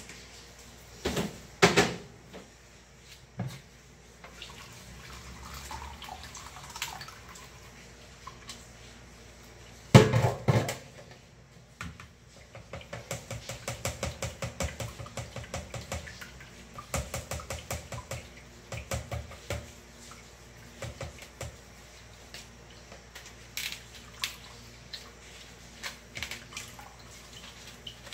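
Blended shrimp-head broth being strained through a plastic sieve into a plastic bowl: liquid dripping and pouring, with knocks of the sieve and hands against the bowl, loudest about ten seconds in. In the middle comes a run of quick, even knocks, about four a second.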